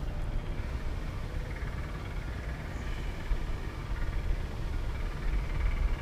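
Honey bees buzzing steadily around an opened hive, under a low rumble of wind on the microphone.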